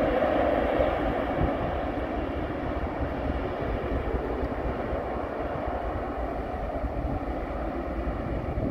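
Distant jet airliner landing: a steady rush of its engines, strongest in the first second and then easing slightly, with wind buffeting the microphone underneath.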